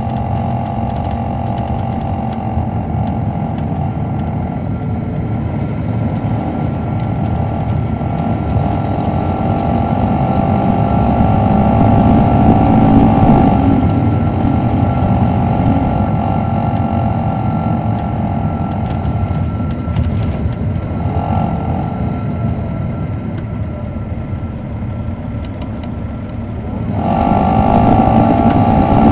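Caterpillar C13 diesel engine of a 2007 MCI D4500CL coach, heard on board while the bus is under way. The engine pulls harder and louder from about ten seconds in, rising in pitch, eases off after about fourteen seconds, and picks up again with a jump in loudness near the end.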